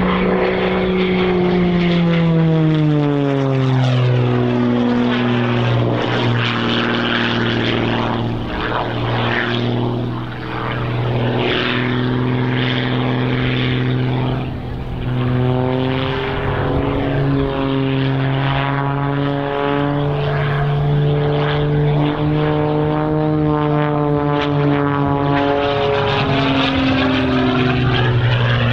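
Single-engine aerobatic propeller plane (MXS-RH) flying a display, its engine and propeller droning steadily. The pitch drops sharply a couple of seconds in as it passes, then holds with small rises and falls through its manoeuvres.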